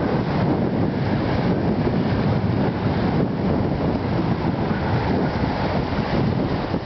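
Wind buffeting the microphone in a steady rumble, with waves on a choppy lake washing against the rock breakwater.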